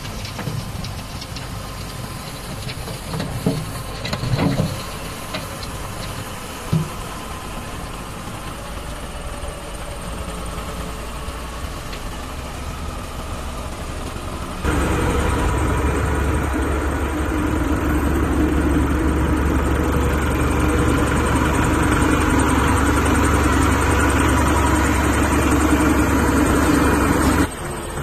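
Engine of a sweeper machine running while its rotary broom sweeps, with a few thumps a few seconds in. About halfway it turns abruptly louder and steadier, then cuts off just before the end.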